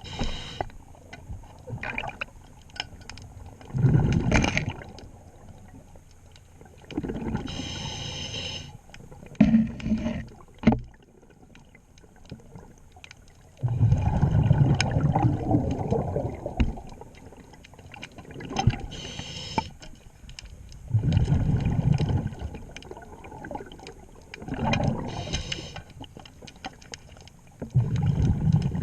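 Diver breathing underwater through a scuba regulator: a hissing inhale with a faint whistle, then a bubbling rumble as the exhaled air escapes, repeating every several seconds. Scattered clicks and knocks of work on the propeller run between breaths.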